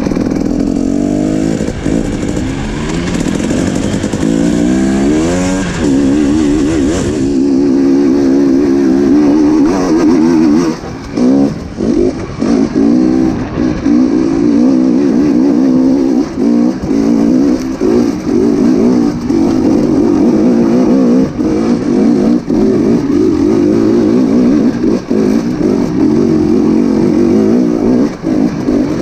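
Off-road motorcycle engine running hard under load, its revs climbing over the first few seconds and then rising and falling with the throttle, with a few brief throttle chops about a third of the way in.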